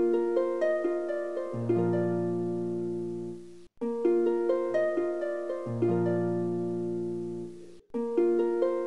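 Background music: a plucked-string tune of single notes that ring and fade. A short phrase repeats about every four seconds, with a brief gap between repeats.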